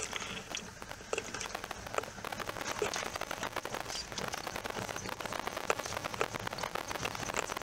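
Safari vehicle driving on a dirt track: a dense, irregular crackle of small clicks and ticks from gravel under the tyres and the rattling body, over a faint low engine rumble.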